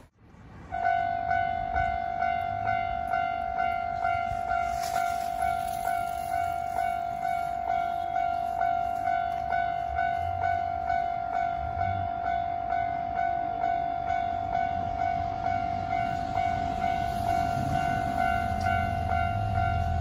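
Japanese railway level-crossing warning bell ringing in a steady repeating pattern of about two strikes a second, starting about a second in. It warns of an approaching train as the crossing barriers come down.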